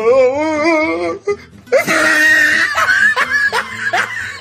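Comedy sound track of music and vocal effects: a wavering, vibrato-laden vocal note for about a second, then a loud shrill cry about two seconds in, followed by short rising laugh-like yelps about three a second.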